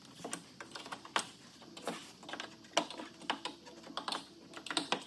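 Irregular light clicks and taps of a small screwdriver working at plastic boot trim and its clips, with a few sharper clicks among them.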